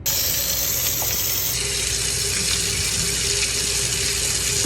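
Kitchen faucet running at full stream into the sink, a steady loud rush of water that starts abruptly.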